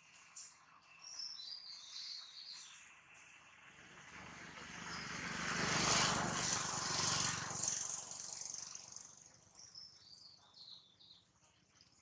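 An aircraft passing overhead: a rushing drone that swells to a peak about halfway through, then fades away. Small birds chirp before and after it.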